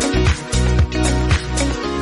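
Background music with a steady electronic dance beat, about two beats a second.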